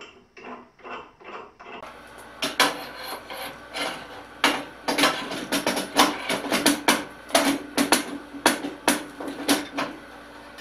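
Thick aluminum jointer extension plate being fitted onto a jointer's infeed bed: sharp, irregular metal knocks and clicks, some in quick clusters, from about two seconds in until near the end.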